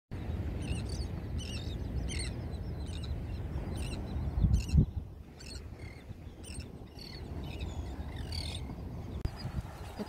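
A flock of gulls calling, short high cries repeating about once a second and thinning out after the first five seconds. Under them is a low rumble of wind on the microphone, loudest in a gust about four and a half seconds in.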